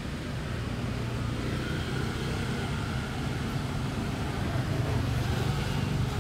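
A motor vehicle engine running steadily as a low hum, slowly growing louder.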